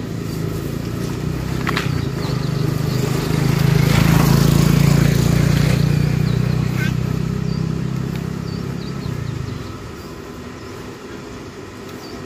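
A motor engine running with a steady low hum, growing louder to a peak about four seconds in, then dying away shortly before the end.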